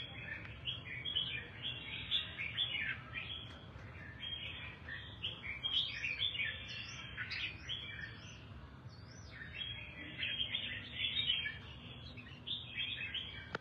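Red-whiskered bulbul singing: a quick, continuous run of bright chirps and short sliding whistled notes, with a brief lull about two-thirds of the way through.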